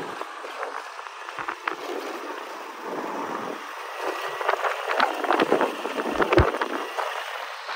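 Wind rushing over the microphone of a camera carried on a moving two-wheeler, with the rider's motor and tyres under it. The wind buffets harder from about four and a half seconds in, with crackling gusts.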